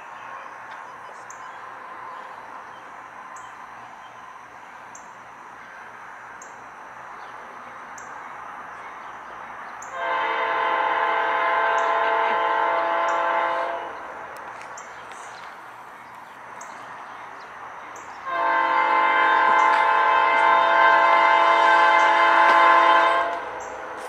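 Nathan P5 five-chime air horn on the lead GE diesel locomotive sounds two long blasts, the first about ten seconds in and a longer one from about eighteen seconds, over the steady rumble of the approaching train.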